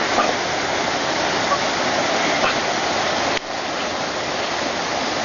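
Steady rush of running water, like a waterfall or inflow spilling into a pool, with a brief drop in level about three and a half seconds in.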